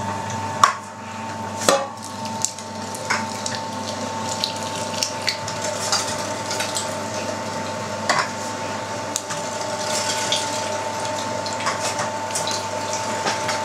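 Electric meat grinder running with a steady whine while salted lean pork is pushed through a 4–5 mm plate. The metal pusher and feed tray clink and knock now and then, with two sharper knocks in the first two seconds.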